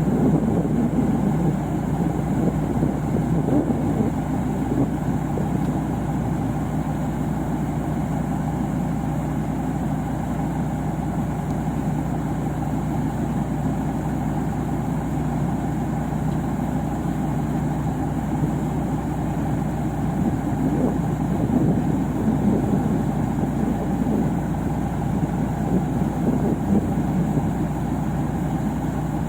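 Combine harvester's diesel engine running steadily at a constant speed, with an even low hum.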